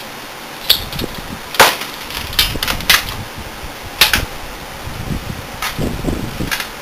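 Sharp, irregular clicks and knocks of computer hardware being handled and fitted inside a desktop PC case, about six in all, with faint rustling between.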